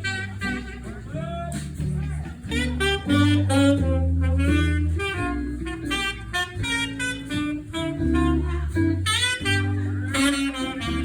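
Jazz band music in an instrumental passage: a horn melody over a stepping bass line and guitar.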